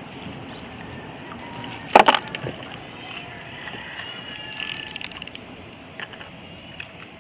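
A short cluster of sharp knocks on the small wooden boat about two seconds in, then a few faint clicks, over steady outdoor background noise.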